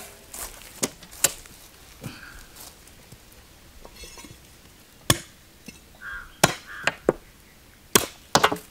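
Large knife chopping whole raw turkeys on a wooden log chopping block: about ten sharp knocks at uneven intervals, with pauses between them.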